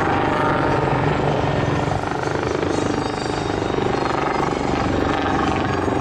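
Helicopter flying overhead while manoeuvring, its rotor giving a rapid, steady beat.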